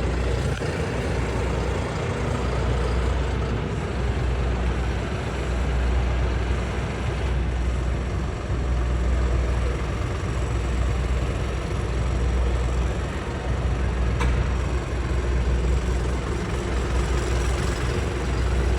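Heavy pulling-vehicle engine idling with a deep, steady rumble; a single short click about fourteen seconds in.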